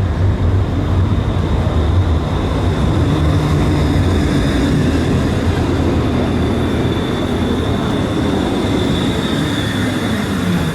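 Electric tram running on its rails: a steady rumble of wheels and body with a thin high whine over it. Near the end a lower motor tone falls in pitch as the tram slows.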